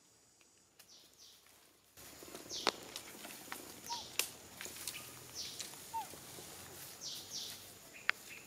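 Birds chirping outdoors, repeated short falling notes often in pairs, over a steady background hiss that grows louder about two seconds in, with a few sharp snaps like twigs or dry leaves being stepped on.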